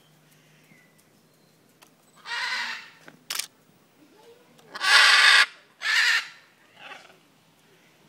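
Parrots squawking: a harsh call a couple of seconds in, then two louder ones close together and a fainter one after, with a single sharp click between the first and second.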